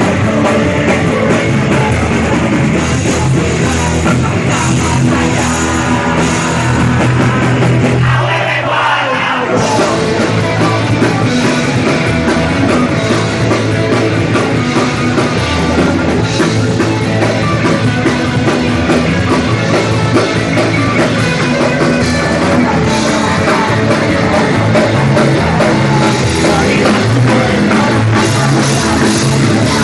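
Punk rock band playing live: electric guitar, bass and drum kit, with several voices shouting the vocals together into one microphone. About eight seconds in, the low end drops out for a moment in a short break, then the full band comes back in.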